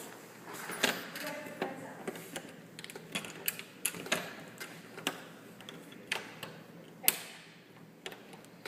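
Scattered light clicks and taps at an uneven pace, with a sharper knock about seven seconds in and another near the end.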